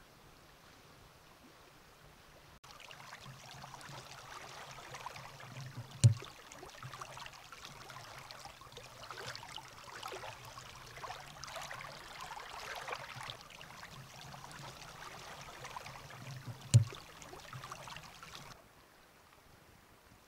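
Rushing, splashing stream water, with two sharp knocks about eleven seconds apart. It cuts in suddenly a few seconds in and cuts out near the end, leaving a faint steady hiss.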